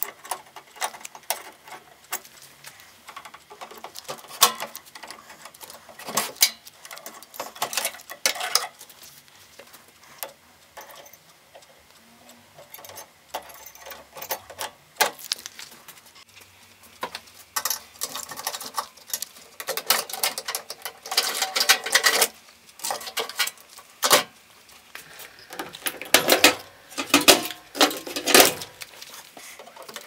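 Irregular clicks, scrapes and light metallic clatter of pliers and sheet-metal parts as a microwave oven's high-voltage wiring is worked loose. The sounds come in scattered clusters and are busiest in the second half.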